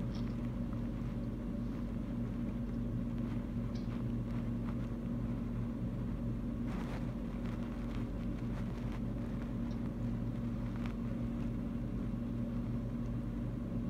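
Steady low hum with a few faint clicks and taps, and a brief rustle about seven seconds in.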